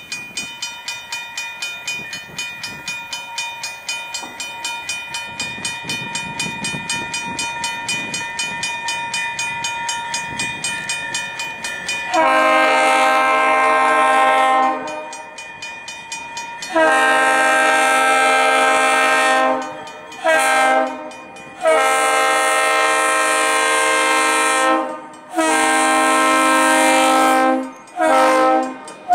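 A grade-crossing warning bell rings steadily at about three strokes a second. About twelve seconds in, an EMD GP10 locomotive's loud air horn starts sounding a chord of several notes in the grade-crossing pattern: two long blasts, a short one, then more long blasts and a short one.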